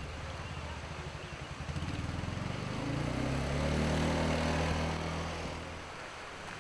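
ATV (four-wheeler) engine running as it drives slowly past, growing louder to a peak about four seconds in and fading away just before six seconds.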